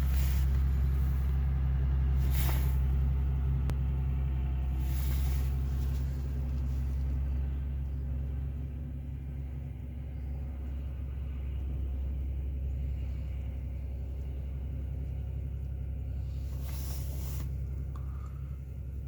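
John Deere 3130 tractor's diesel engine running steadily under load while ploughing, growing fainter over the first half. Three brief bursts of hiss stand out, a couple of seconds in, about five seconds in and near the end.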